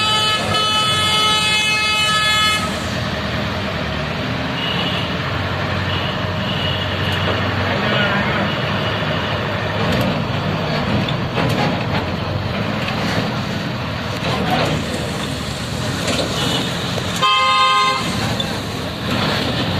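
City street traffic: the steady din of engines and tyres, with a long vehicle horn blast lasting about two and a half seconds at the start and another short horn honk near the end.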